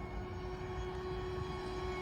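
Electric RC racing boat's Scorpion 5035 500 kV brushless motor running at steady throttle, a high whine holding one pitch over a low rumble.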